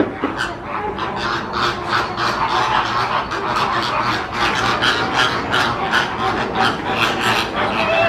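A large flock of birds calling over one another in a dense, unbroken run of short calls.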